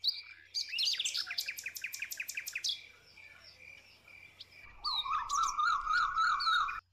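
Birds chirping and singing: a fast run of repeated chirps, about five a second, in the first few seconds, then a warbling song later that cuts off suddenly just before the end.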